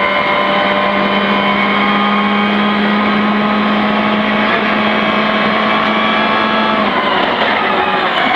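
Rally car engine heard from inside the cabin, held at steady high revs flat out along a long straight. About seven seconds in the engine note breaks off and drops as the car lifts off for braking.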